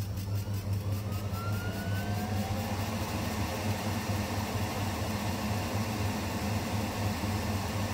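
FLUX beamo desktop laser cutter running an engraving job on 3 mm wood: a steady machine hum and airflow rush, with thin motor whines rising in pitch during the first couple of seconds as the laser head starts moving.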